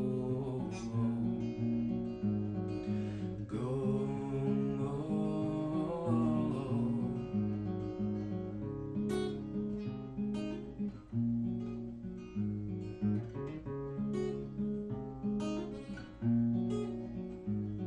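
Solo acoustic guitar playing a steady instrumental passage of picked and strummed chords between verses of a song.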